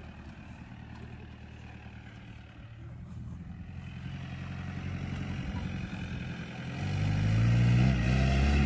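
Isuzu V-Cross pickup's diesel engine running at low revs, then revving up and getting much louder about seven seconds in, its pitch climbing.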